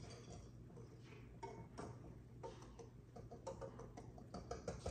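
A whisk faintly ticking and clicking against a mixing bowl in quick, irregular strokes as dry flour is stirred together.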